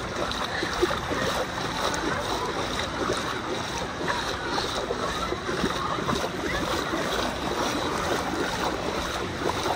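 Water rushing steadily down the lanes of a multi-lane mat waterslide into its shallow run-out pool, with scattered voices faint in the background.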